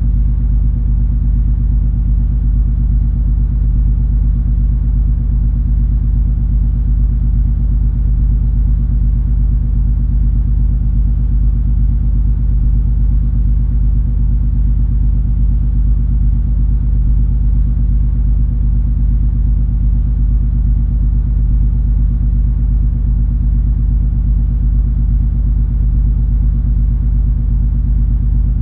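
Cruise ferry MS Color Fantasy under way: a deep, steady rumble of the ship's engines and machinery with a low hum, unchanging throughout.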